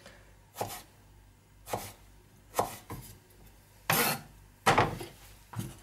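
Kitchen knife cutting a potato into chips on a chopping board: six separate knocks as the blade goes through the potato onto the board, about one a second, the two near the end loudest.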